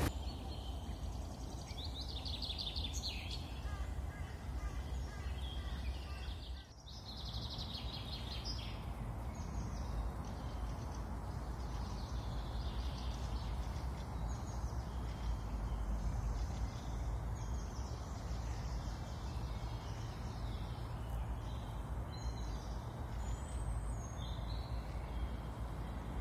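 Small birds chirping and twittering in many short, repeated calls over a steady low background rumble. The sound drops away briefly about seven seconds in.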